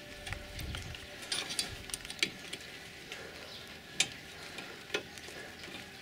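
Light metallic clicks and taps of hand tools and a guide bolt at a Renault Megane II front brake caliper, as the bolt is worked into its thread. The clicks come irregularly, and three sharper ones stand out about two, four and five seconds in.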